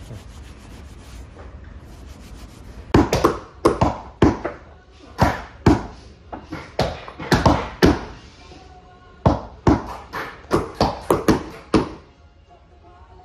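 Caulking mallets striking caulking irons, driving hemp oakum into the seams of a new wooden deck: sharp, irregular knocks about two a second, some with a short ring, starting about three seconds in and stopping near the end.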